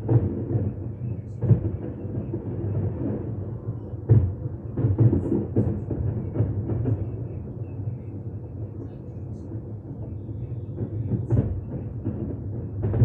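Fireworks bursting: a continuous low rumble of overlapping booms and crackle, with sharper bangs near the start, about four to five seconds in, and again near the end.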